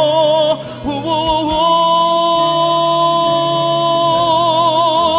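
Worship song: a singer holds a long note with wide vibrato, breaks off briefly about half a second in, then holds another long vibrato note over a steady low accompaniment.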